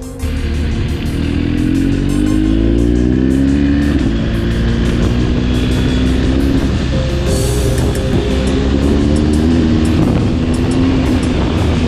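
BMW R 1250 GS's 1254 cc boxer twin through an Akrapovic exhaust with the dB killers removed, pulling hard: the exhaust note rises steadily through the revs, drops at a gear change about four seconds in, then climbs again.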